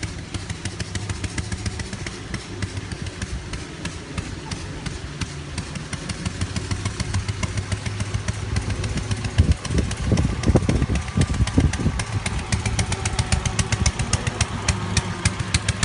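Small fishing-boat engine running on pure LPG, idling with an even run of exhaust pulses. The pulses come a little faster in the second half, with a few heavier low beats about two-thirds of the way in.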